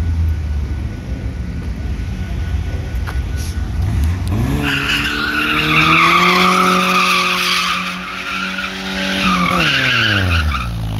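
A small pickup truck's engine revs up and holds high while its rear tyres squeal in a sustained skid as it spins donuts. Near the end the revs fall off and the squeal fades.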